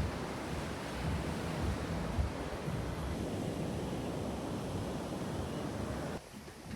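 Sea surf washing on a beach, with wind buffeting the microphone in low gusts. The sound drops away abruptly near the end.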